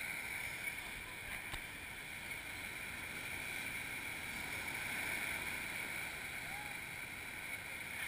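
Ocean surf breaking and washing up a sandy beach: a steady rush of noise that swells and eases slowly.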